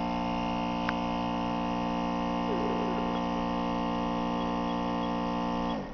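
Built-in pump of an ISL NCK2 5G Noack evaporation-loss tester running with a steady hum of several tones, then shutting off just before the end, its pitch sinking as it stops. A small click sounds about a second in.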